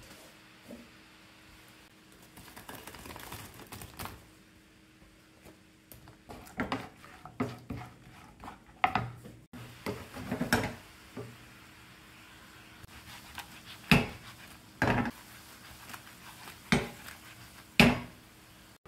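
A spatula knocking and scraping against a nonstick frying pan while chicken pieces are tossed through a sticky, bubbling glaze: a series of sharp knocks, roughly one a second, through the second half.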